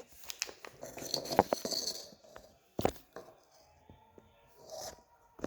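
Sticky homemade slime being handled in its container, giving scattered small clicks and crackles, with one sharper click about three seconds in.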